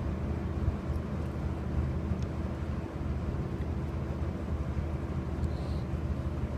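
Steady low mechanical hum with a dull rumble, unchanging in level and pitch.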